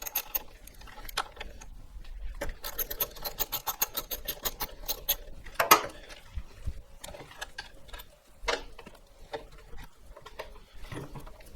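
Toothbrush scrubbing a motorcycle brake caliper, with runs of quick back-and-forth strokes and a single louder knock about halfway through.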